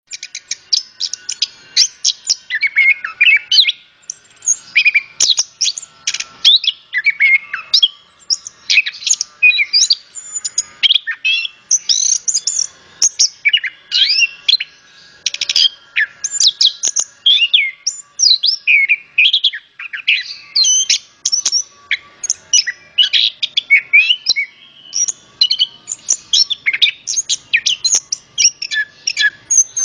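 Chestnut-capped thrush (anis kembang) singing a loud, continuous full song of rapid, varied short phrases: quick whistles and chattering notes, with barely a pause between them.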